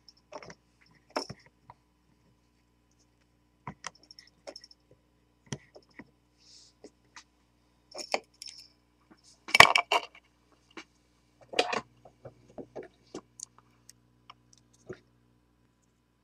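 Scattered small clicks and knocks of hands handling wire and soldering tools at a metal bench vise. The loudest clatter comes about ten seconds in, with a shorter one a second or two later.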